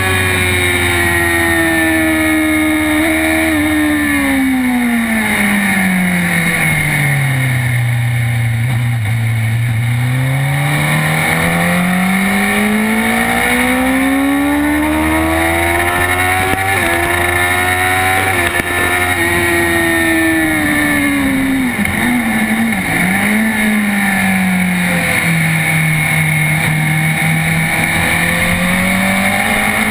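Sport motorcycle engine at speed, heard from on the bike: its revs fall for several seconds, climb back up, then drop again in a few steps about two thirds of the way through, before rising near the end. Steady wind rush on the microphone runs underneath.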